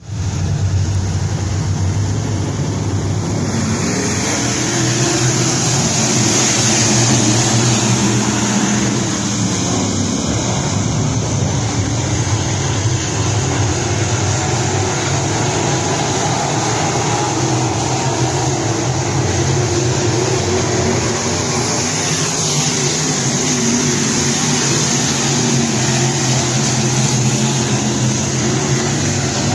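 A field of dirt late model race cars at racing speed around a dirt oval, their V8 engines blending into one loud, continuous drone that swells and eases slightly as the pack comes round.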